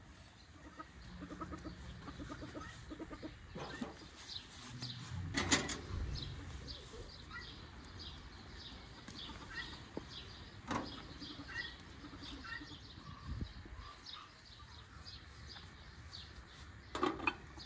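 Small birds chirping again and again and a hen clucking, with a few sharp clanks of metal cookware on the grill: about five seconds in, about eleven seconds in, and near the end as a pot lid is lifted.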